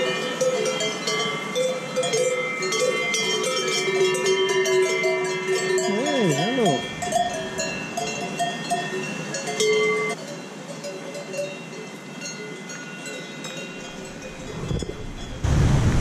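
Many bells on grazing cattle clanking and ringing at different pitches, overlapping. There are light clicks, and a brief wavering sound about six seconds in. Near the end a loud rush of wind noise takes over.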